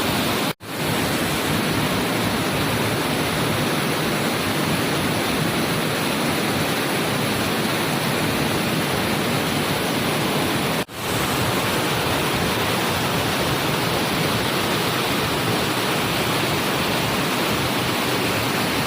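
Waterfall rushing, a loud steady roar of falling water. It cuts out abruptly and fades back in twice, about half a second in and again about eleven seconds in.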